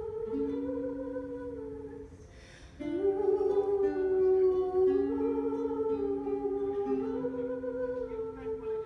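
Live acoustic performance: a wordless vocal melody of long held, slowly bending notes over acoustic guitar. The music thins out briefly about two seconds in, then comes back fuller.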